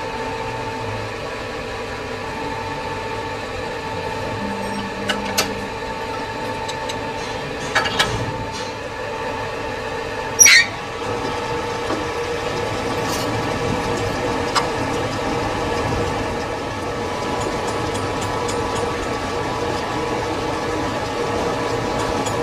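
Metal-working lathe running with a steady whine, with a few sharp metallic clanks; the loudest comes about ten seconds in, after which the machine's tone changes slightly.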